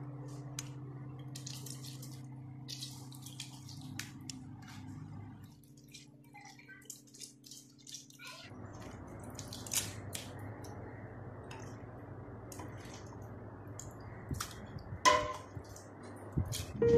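Grapes dropped a few at a time into a stainless steel pot, giving scattered light clicks, then crushed and squeezed by hand in the pot, with wet squishing and small knocks against the metal. A steady low hum sits under the first few seconds.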